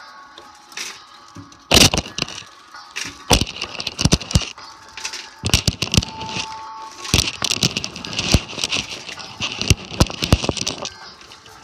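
Automatic car wash cloth brushes slapping and scrubbing against the car's window and body, heard from inside the car: a rushing swish with many irregular sharp slaps, starting about two seconds in.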